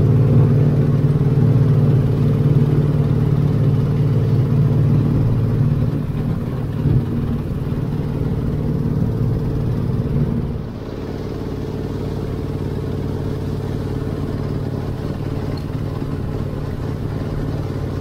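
Boat engine running steadily close by, heard from on board. About ten and a half seconds in, the engine note drops and it carries on at a lower, even level.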